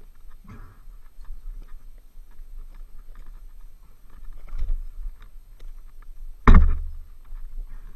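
Scuffing and scraping of a rider's gloves and boots in loose dirt, with scattered small clicks, and one loud thump about six and a half seconds in.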